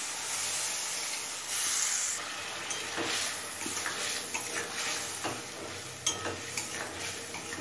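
Sizzling as a splash of water hits the hot oil and spice masala in a metal kadai, louder for a moment about a second and a half in. A spatula then stirs the thick masala, scraping and clicking against the pan.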